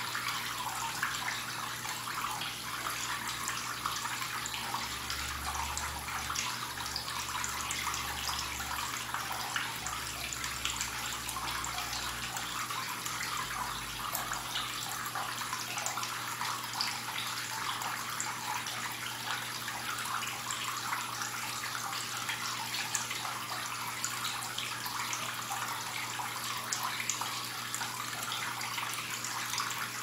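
Running water trickling and splashing steadily, a dense patter of small splashes.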